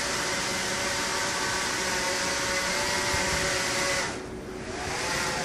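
Quanser 3-DOF helicopter's two propellers, driven by DC motors, running with a steady whirring hum as the controller lowers it to land. About four seconds in the sound drops sharply as the propellers slow, and a faint whine rises and falls.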